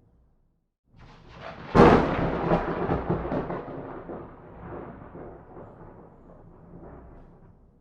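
A single peal of thunder. It starts faintly about a second in, breaks into a sharp, loud crack, then rolls on as a rumble that fades away over several seconds.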